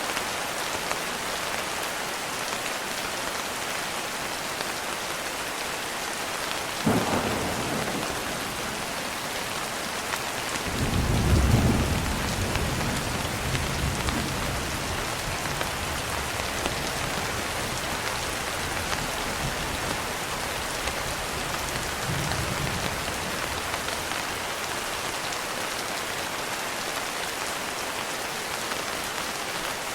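Steady rain falling, with thunder: a sharp crack about seven seconds in, then a louder low rolling rumble a few seconds later that fades over several seconds, and a fainter rumble about two-thirds of the way through.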